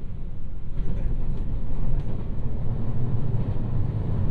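JR West 223 series electric train running, heard from inside the passenger car: a steady low rumble of wheels on rail that grows a little louder about a second in.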